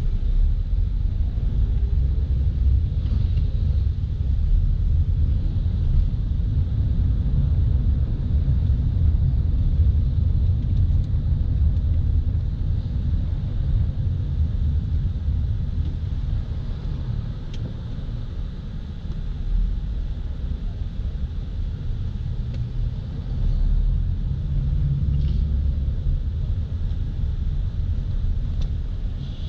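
Low, steady rumble of a car driving through city streets, heard from inside the closed cabin: engine and tyre road noise, easing a little about two-thirds of the way through.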